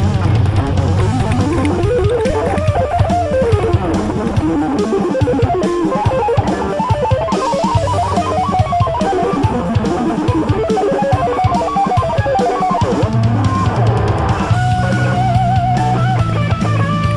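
Rock music with a melodic guitar lead over bass and drums; the guitar settles into long held notes near the end.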